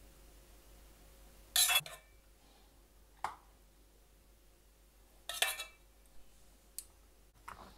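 A few short clinks and knocks of kitchenware being handled: two louder clattering ones, about a second and a half in and again past five seconds, and lighter taps between and after.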